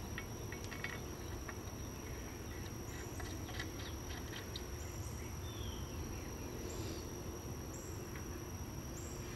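Quiet outdoor ambience: insects keep up a thin steady high buzz with soft chirps every second or so. A few faint light clicks in the first few seconds come from small bolts being handled against a cast-iron axle housing.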